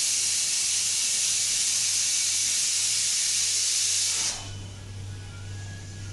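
A steady, even hiss of noise that starts abruptly and cuts off suddenly about four seconds in, followed by a faint low hum.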